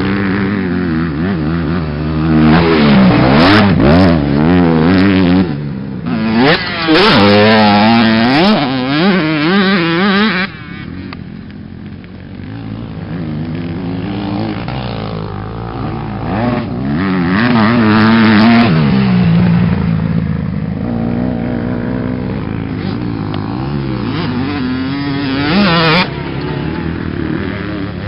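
Motocross bikes running on a dirt track, engines revving up and down repeatedly as riders accelerate and shift past; loudest in the first ten seconds and again at about 17 and 26 seconds.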